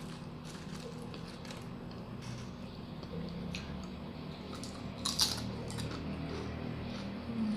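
Fried banana chips (kluay chap) giving scattered short, crisp clicks and crunches as they are handled and eaten, with one louder crack about five seconds in.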